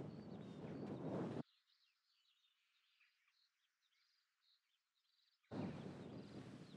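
Rough, noisy footsteps of a walker on a stony hill path. After about a second and a half they drop away to near silence with faint bird chirps, and they return near the end.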